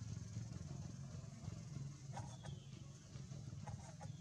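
Low steady rumble of a vehicle engine running nearby, with a few faint clicks about halfway through and again near the end.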